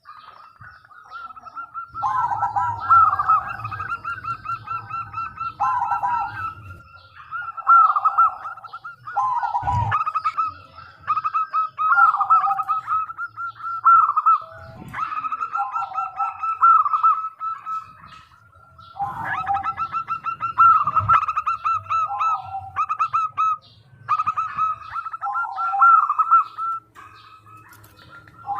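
Zebra dove (perkutut) cooing, its rapid stuttering phrases repeated again and again with short pauses between them.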